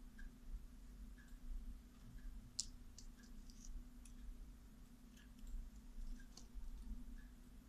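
A few faint, sharp clicks, the loudest about two and a half seconds in, over a low steady hum, with a soft tick repeating a little under once a second.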